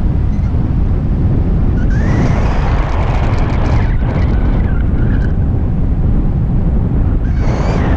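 Loud wind rushing over the microphone of a camera mounted on a paraglider in flight, a steady low rumble. A high whistle-like tone comes in twice, rising about two seconds in and again near the end.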